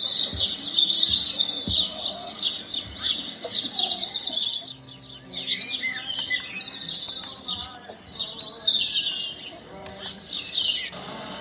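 Many small birds chirping and twittering in a dense, continuous chorus. Near the end the birdsong gives way to a steady rushing noise.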